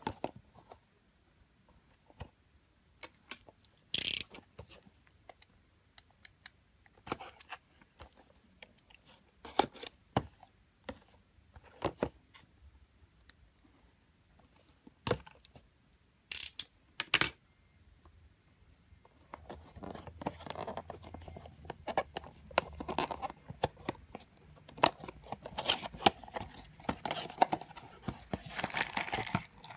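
Hands handling a small cardboard figure box: scattered sharp clicks and snips as scissors cut the box open, then from about two-thirds of the way in, steady rustling and crinkling of cardboard and plastic wrapping as the box is opened.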